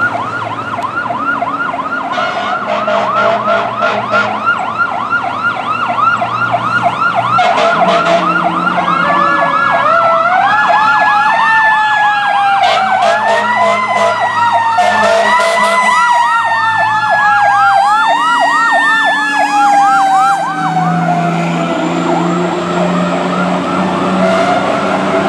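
Fire engine's electronic siren in a fast yelp, with a slower siren tone wailing up and down over it for about ten seconds in the middle. The truck's diesel engine drone comes up strongly near the end as it passes close by.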